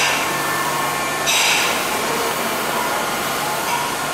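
Steady whirring hiss and low hum of a stopped electric train's onboard equipment at the platform, with short louder hisses at the start, about a second and a half in, and near the end.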